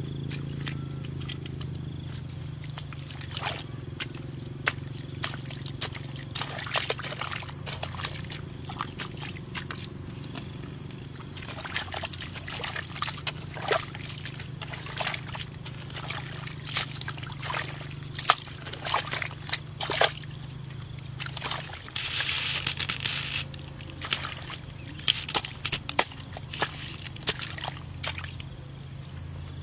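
A long-handled digging tool chopping into wet mud at a waterlogged ditch bank: irregular sharp strikes with wet sloshing and squelching of mud and water, and a short splashy patch a little after two thirds of the way in. A steady low hum runs underneath.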